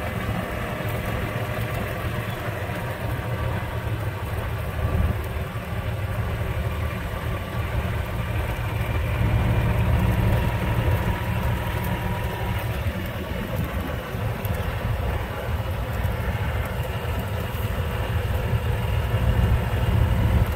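Steady low rumble of a car moving slowly: engine and road noise, swelling slightly now and then.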